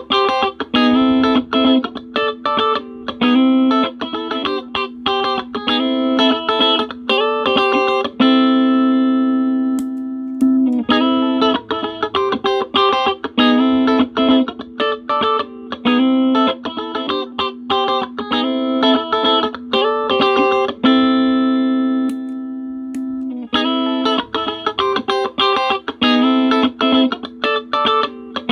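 Electric guitar played through a compressor pedal: a quick phrase of short picked notes, twice ending on a long sustained note that rings for about two seconds and fades, and the phrase repeats.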